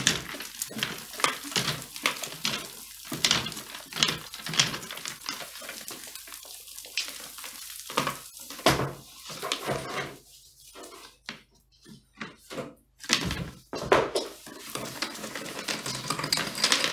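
Chimney sweep's rods and brush being worked up a blocked flue, scraping and knocking inside the chimney, with twigs and debris clattering down into the fireplace in irregular bursts. A quieter stretch comes just past halfway, then louder knocks.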